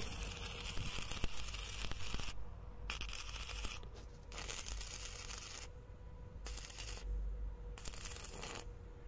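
Electric arc welding on a steel frame: a crackling, sizzling hiss that starts and stops five times, the first stretch about two seconds long and the rest shorter, with brief pauses between.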